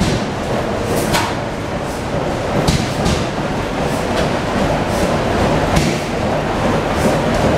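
Antique stationary engines running together: a steady mechanical rumble and clatter with sharp knocks at uneven intervals, about one every second or two.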